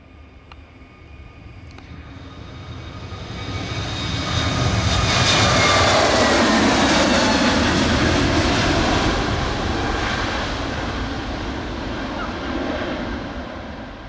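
Airbus A320neo's Pratt & Whitney PW1100G geared turbofan engines at takeoff thrust. The sound builds as the airliner rolls and lifts off, is loudest midway with a whine that falls in pitch as it passes, then fades as it climbs away.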